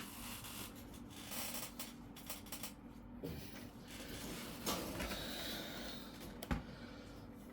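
Quiet handling noises on a work surface as things are moved about: rubbing and shuffling, with small knocks about three seconds in, near five seconds, and again about a second and a half later.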